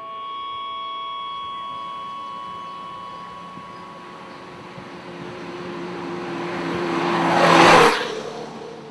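Quasar enclosed feet-forward motorcycle's engine running as it rides up the road and passes close by. It grows louder to a peak nearly eight seconds in, then drops suddenly in loudness and pitch and fades as it moves away.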